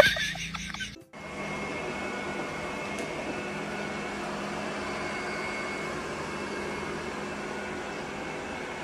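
Robot vacuum cleaner running with a steady hum and a faint high whine. About a second in it cuts in suddenly after a brief loud sound at the very start.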